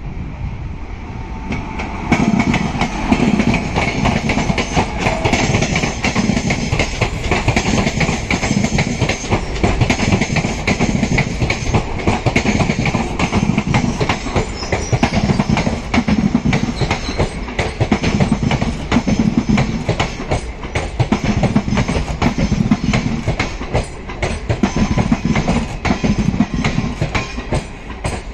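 Indian Railways WAP-5 electric locomotive and its passenger coaches passing close by. About two seconds in, the approach gives way to loud wheel clatter, and a repeating clickety-clack comes every second or two as each coach's wheels cross the rail joints.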